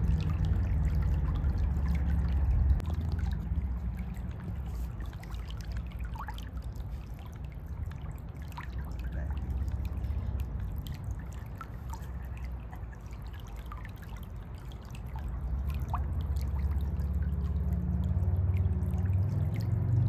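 Shallow creek water trickling and gurgling over rocks, with small scattered drips and bubbles. A low rumble under it is strongest at the start, dips in the middle and builds again over the last few seconds.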